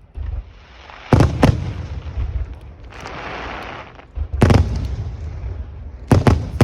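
Aerial fireworks shells bursting with booms, six or so in all, with a loud pair about a second in and another pair near the end. A hissing crackle fills the gap in the middle.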